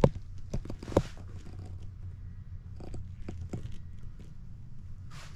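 A few sharp clicks and knocks over a low steady hum. The loudest click comes at the very start and another about a second in.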